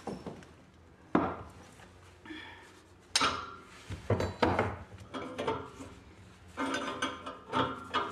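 Steel pipe and hand tools clanking and clinking against a brass union fitting on a cast-iron radiator: a series of irregular metallic knocks, some ringing briefly, as the fitting is worked on.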